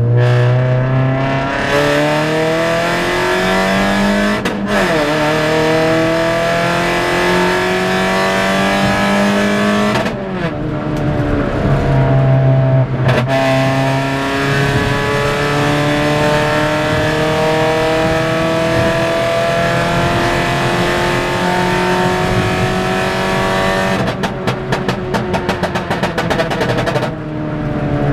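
Toyota Yaris 1.5-litre 1NZ-FE four-cylinder engine accelerating hard through the gears, its pitch rising in long pulls with brief breaks at the gear changes. Near the end the exhaust lets off a rapid string of pops and crackles for about three seconds as the revs fall, from a pop-and-bang backfire tune.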